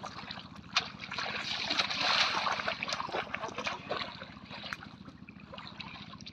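Water splashing and sloshing as feet wade through shallow floodwater, loudest about two seconds in, with a few sharp short splashes.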